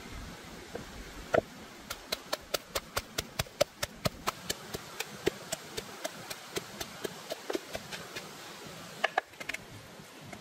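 Pestle pounding chillies and garlic in a mortar: a steady run of sharp knocks, about four a second, that stops about eight seconds in, with a few more knocks near the end.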